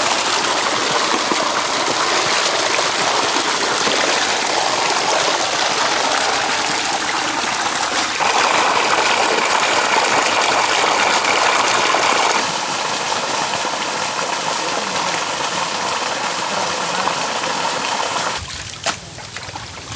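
Loud, steady rushing of water gushing out of a pipe and splashing into a flooded channel and a metal basin. Near the end the rushing drops away and a few sharp knocks are heard.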